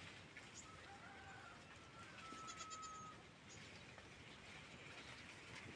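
Faint goat bleating: a thin, slightly wavering call starts about a second in and is held for about two seconds. A quick run of high ticking chirps sounds over its end.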